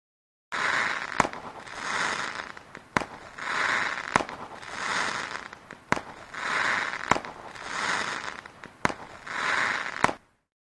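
Fireworks going off: seven sharp bangs between swelling bursts of crackle, repeating about every second and a half. It starts about half a second in and cuts off suddenly near the end.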